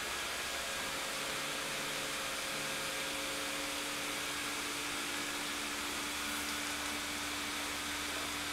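Electric blower fans of Halloween yard inflatables running steadily with a whooshing air noise and a faint hum, as the inflatables fill with air.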